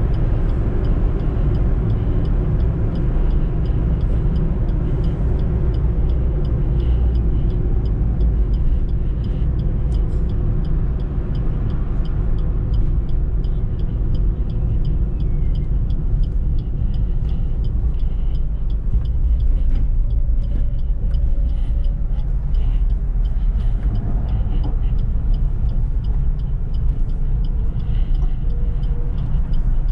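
Suzuki EECO with its 1.2-litre petrol engine being driven along at a steady pace: a continuous low engine and road rumble with no marked revving or gear changes.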